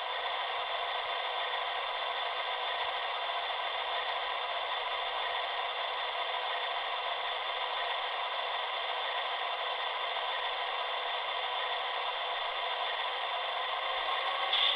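HO-scale Broadway Limited Imports GE AC6000CW model's DCC sound decoder playing its diesel engine sound, running steadily with the locomotive standing still. It comes through the model's small speaker, with little bass.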